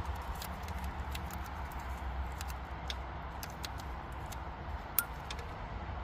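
Scattered light clicks and taps of hand work on small engine parts over a steady low hum, with one sharper click about five seconds in.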